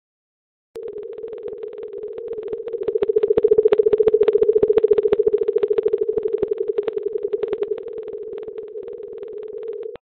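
Underwater hydrophone recording: a steady hum around 450 Hz chopped into rapid, even pulses, starting abruptly under a second in, swelling in the middle, then cutting off suddenly.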